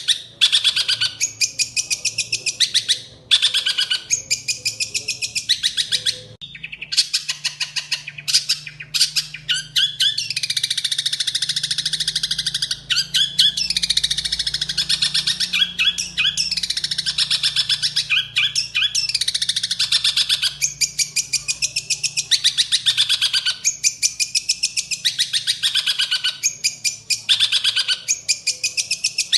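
A songbird singing in fast trills of rapidly repeated high notes and sweeping phrases, broken by a few brief pauses.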